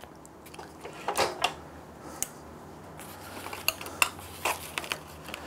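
Scattered clicks and light clatter from a scroll saw's blade tension lever and upper arm as the blade is released, mixed with the rustle and scrape of a paper-faced packet of brittle veneers being slid across the saw table.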